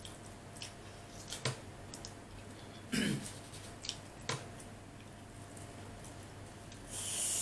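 Eating noises from a man snacking on chicken nuggets: scattered small clicks and mouth sounds, a short throat-clearing sound with a falling pitch about three seconds in, and a brief hiss near the end.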